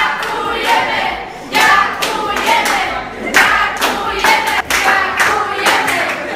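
Voices singing together, with hand-clapping mixed in.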